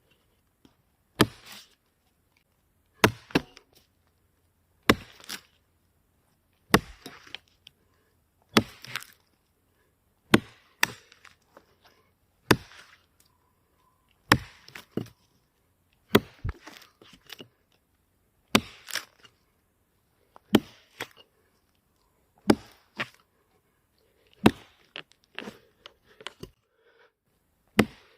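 A freshly sharpened axe chopping into a wet pine log: about fourteen sharp blows, roughly one every two seconds, many followed closely by a lighter second knock.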